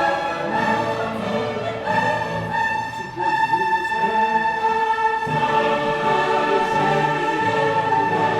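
Orchestral music with choir-like voices on long held chords that change a couple of times.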